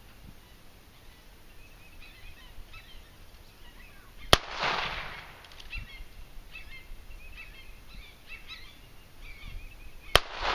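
Two single handgun shots about six seconds apart, each a sharp crack with a short echo trailing off. Birds chirp faintly between them.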